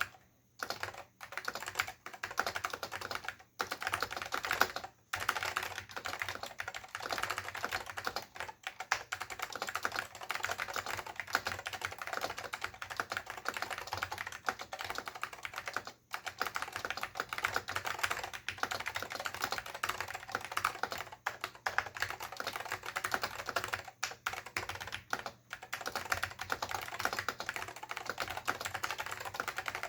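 Continuous fast typing on a Dell AT101 keyboard with Alps SKCM Salmon switches and PBT dye-sublimated keycaps: a dense stream of key clicks with a few brief pauses.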